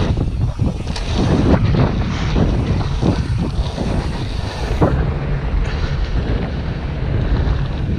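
Wind buffeting the action camera's microphone as a BMX bike rides fast over the track, with the tyres rolling on dirt and asphalt and a few knocks from the bike, the sharpest just under five seconds in.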